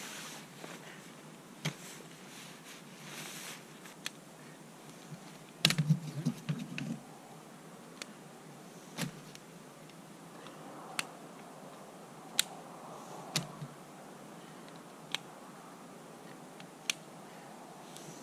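Scattered sharp clicks and light knocks of tent poles and fittings being handled while a tent is pitched, with a quick cluster of louder knocks about six seconds in.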